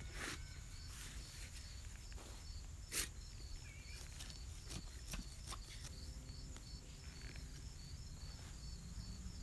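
Faint scrapes and knocks of a hand digger cutting a plug of lawn soil, the strongest about three seconds in, over the steady, evenly repeating chirps of crickets.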